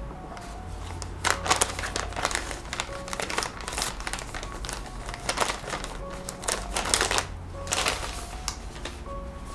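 Plastic wet-wipe packet crinkling in irregular short rustles as it is handled and a wipe is pulled out, over soft background music.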